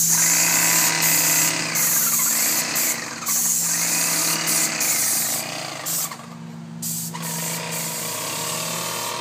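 Airless paint sprayer hissing as paint is sprayed from the gun onto a garage door, the spray cutting out briefly several times as the trigger is let go, over a steady low hum.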